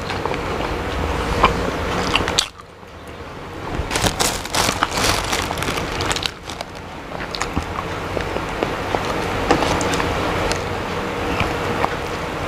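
Close-up eating sounds of a man chewing and biting chicken feet: crackly crunches and clicks, with a short lull about two and a half seconds in and a busy run of crunches around four to five seconds in.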